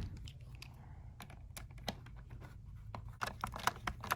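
Light plastic clicks and taps as small trim pieces are handled and pressed into place on a car steering wheel, scattered at first and coming faster and louder near the end.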